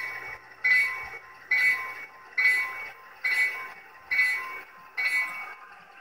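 Recorded diesel locomotive bell from the Tsunami digital sound decoder of an HO-scale Walthers Proto 2000 F3 model, played through its small onboard speaker. It rings steadily, a strike a little faster than once a second, and stops near the end.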